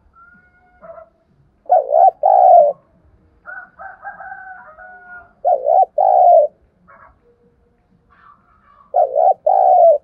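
Spotted dove cooing: three two-part coo phrases, each a short note followed by a longer one, repeated about every three and a half seconds.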